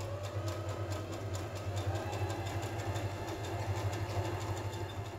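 Electric domestic sewing machine running steadily, its motor humming under a rapid, even ticking of the needle as it stitches a line through folded fabric.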